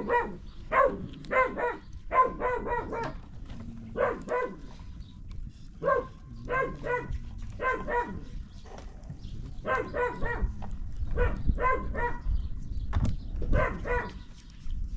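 A dog barking over and over in quick runs of two to five high yaps, with short pauses between runs.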